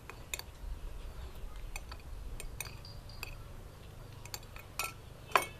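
Spoon and fork clinking against a plate while eating rice: a scatter of light, irregular clinks, the loudest near the end.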